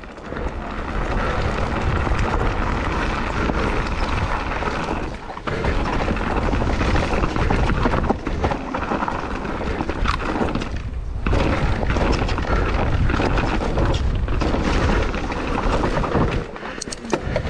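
Mountain bike riding fast down a trail: heavy wind rumble buffeting the camera microphone over a rough hiss of tyres on the dirt. It eases briefly twice, and a few sharp knocks or rattles come near the end.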